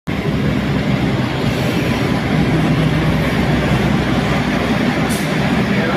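A KAI CC201-class diesel-electric locomotive (GE U18C) passing close by at speed, its diesel engine running steadily under the rumble of the train. There is a brief high hiss about five seconds in.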